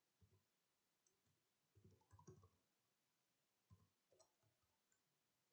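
Near silence with faint computer keyboard clicks as an email address is typed, in small clusters about two and four seconds in.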